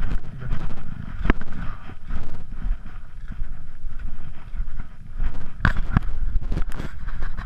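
Wind buffeting the microphone with a fluctuating low rumble, broken by a sharp knock about a second in and a few more knocks over the last two seconds.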